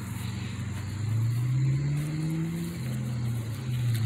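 A car engine accelerating on the street: its low pitch rises steadily, drops back about three seconds in, then rises again as it gets louder.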